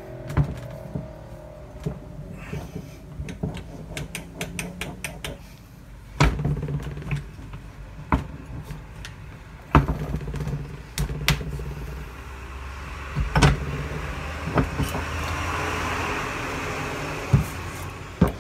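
Metal clicking and clanking as the NP241DHD transfer case's mainshaft, drive chain and sprocket assembly is wiggled and lifted out of the case half, with the chain rattling against the sprocket. A low steady hum runs underneath, and a hiss rises for a few seconds near the end.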